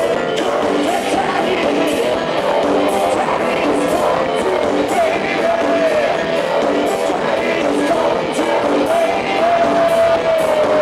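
Live band playing loud industrial rock with a steady driving beat, a male singer singing and shouting the vocal into a microphone, heard from within the crowd through a camcorder microphone.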